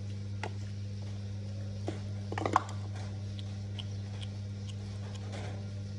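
A cat chewing its food: scattered small crunches and clicks, with a quick cluster of them about two and a half seconds in, over a steady low hum.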